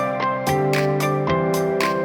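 Instrumental background music with held chords and a steady beat.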